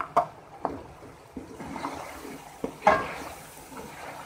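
Metal spoon knocking and scraping against a karahi while chicken is stirred and fried in hot ghee, with a low sizzle underneath. There are several sharp knocks, the loudest about three seconds in.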